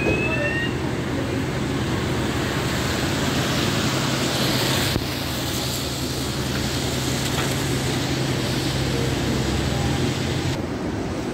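Street traffic at a bus stop: a red double-decker bus's engine runs steadily as the bus pulls away, under wind noise on the microphone. The low engine hum stops shortly before the end.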